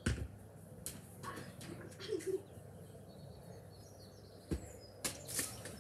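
A football being kicked: a dull thud right at the start, and another about four and a half seconds in, with a few lighter clicks between.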